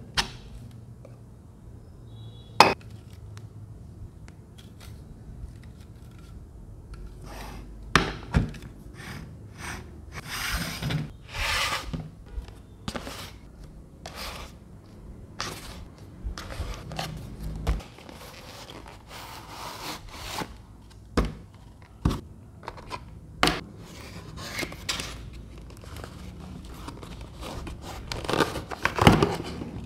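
Handling noises: scattered sharp knocks and clicks of small plastic fans and bases being set down and moved on a table, mixed with scraping, sliding swishes of a cardboard box being handled and opened. The box noise is busiest near the end.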